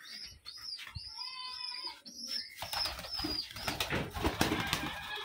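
Giribaz pigeons in a loft: a few short, high calls in the first two seconds or so, then wings flapping busily as a pigeon takes off and flies about.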